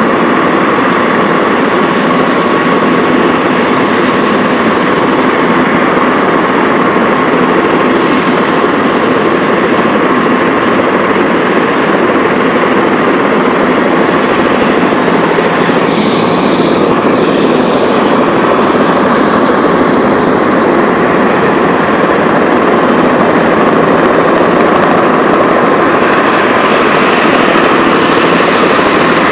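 Turbine tour helicopters running on the pad: a loud, steady rush of rotor and engine noise with a high, even turbine whine.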